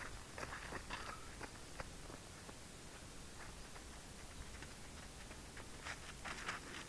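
Faint background noise with scattered light clicks and ticks, a few of them slightly louder near the end.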